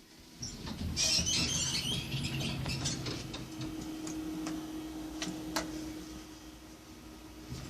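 Inside a small passenger lift cab while it travels: a steady hum with crackling and rattling, and a few sharp clicks, one loud click a little past halfway.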